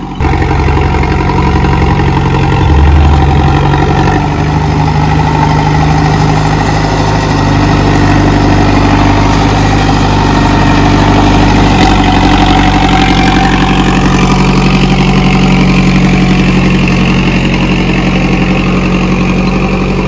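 Farm tractor's diesel engine running steadily under load, driving a PTO-powered super seeder as its rotary tiller works the soil.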